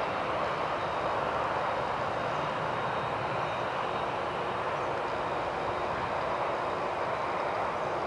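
Boeing 747's four jet engines at high power, heard from behind as the plane moves away down the runway: a steady, even rush of jet noise that does not change.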